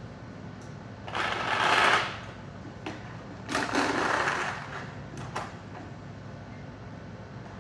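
Paintballs rattling through a 3D-printed pod filler into a paintball pod, in two bursts about a second long each, with light clicks of the mechanism in between.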